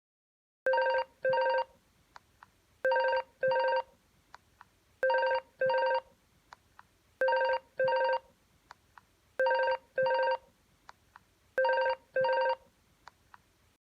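Telephone ringtone sounding the classic double ring: six pairs of short, steady, buzzy tones, one pair about every two seconds, with faint ticks between the pairs.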